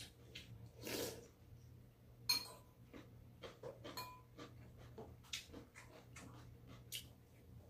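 Quiet mealtime sounds: chopsticks and a spoon clicking and tapping against stainless steel bowls and plastic dishes, with a couple of sharper clinks that ring briefly, about two and four seconds in, and soft eating noises between.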